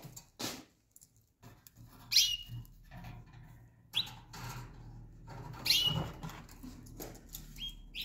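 Pet canaries calling: four short chirps about two seconds apart, each a quick downward sweep ending on a brief held high note. A few soft rustling clicks come at the start, over a faint low hum.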